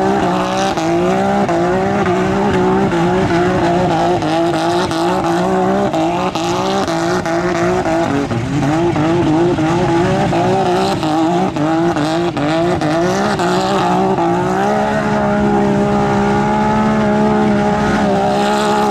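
Side-by-side UTV engine revving hard while the machine spins donuts in mud, the pitch rising and falling about twice a second, then held steady and high for the last few seconds as the wheels keep spinning in the mud.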